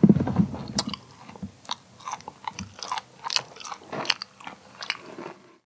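Someone chewing close to the microphone: a run of irregular short wet clicks and smacks. A low muffled sound comes in the first second, and everything cuts off abruptly near the end.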